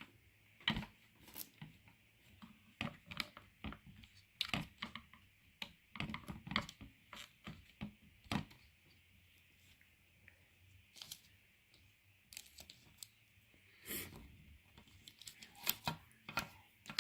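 Plastic pieces of a squishy human-body anatomy model toy being handled and pushed into place: irregular light clicks, taps and short rubbing rustles, with a faint steady hiss beneath.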